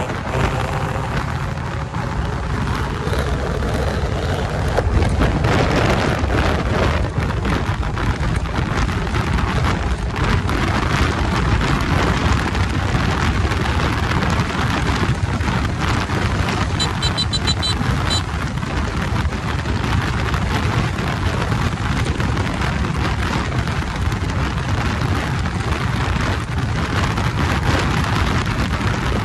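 Steady rush of wind over the microphone of a sport motorcycle cruising at highway speed, with the bike's engine running low underneath.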